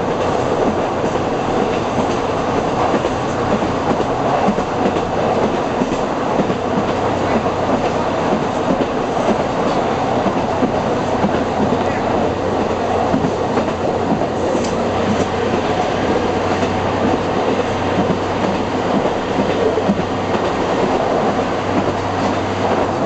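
Metre-gauge diesel railcar of the Chemins de Fer de Provence running along the line, heard from its driver's cab: a steady engine hum under continuous wheel-on-rail rumble and clatter.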